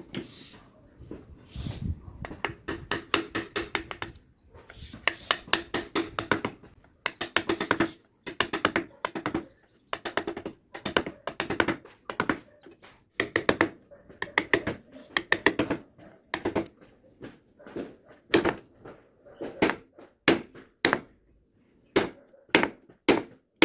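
A flat steel carving chisel is driven into wood with quick runs of light knocks, several a second, with short pauses between the runs.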